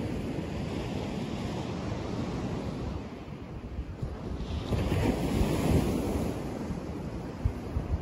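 Sea waves washing onto a sandy beach, with wind buffeting the microphone; the surf swells to its loudest about five to six seconds in.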